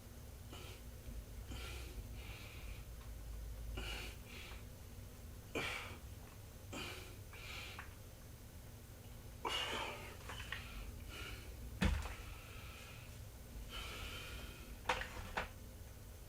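A person breathing hard in short, repeated breaths, with a few sharp knocks along the way, the loudest about three quarters of the way through.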